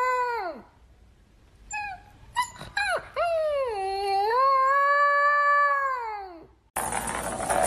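A dog howling: a long howl trails off, a few short yips follow, then a second long howl dips, holds steady and falls away. Near the end a loud hiss of noise cuts in abruptly.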